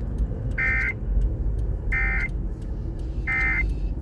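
Emergency Alert System end-of-message data bursts: three short, high-pitched bursts of digital data tone, about 1.4 seconds apart, signalling the end of the warning broadcast.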